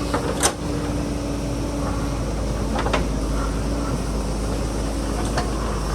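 JCB backhoe loader's diesel engine running steadily, with a few sharp knocks, the loudest about half a second in.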